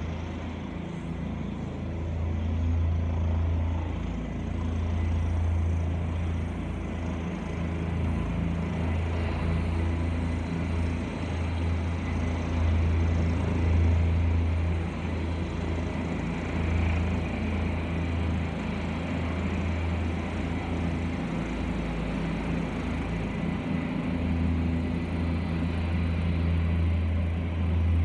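Helicopter hovering and manoeuvring close by: a steady low drone that swells and fades as it moves.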